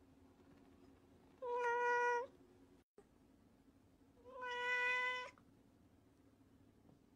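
A cat meowing twice, each meow about a second long and held at a steady pitch, the two about three seconds apart.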